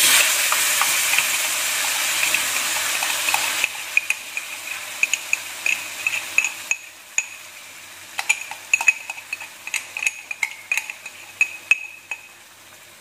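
Blended spice paste sizzling as it is poured into a hot oiled wok. A loud steady hiss for the first few seconds drops suddenly, then gives way to quieter crackling and popping as the paste fries.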